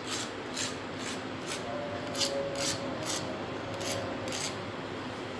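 Fork tines scraped across the crust of a deep-fried bread aloo roll, a series of about nine short, dry rasps. The rasping crust shows the roll is fried crisp and crunchy.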